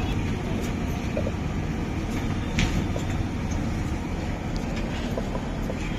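Steady low rumble of a working street-food kitchen, with a few light metallic clinks of utensils, one sharper clink about two and a half seconds in.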